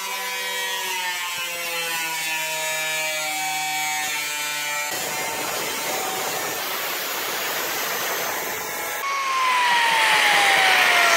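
Angle grinder cutting into the Mustang's steel frame with sparks flying. Its high whine sags slowly in pitch under load, then gives way to a harsh grinding hiss. After about nine seconds a louder whine falls steadily in pitch.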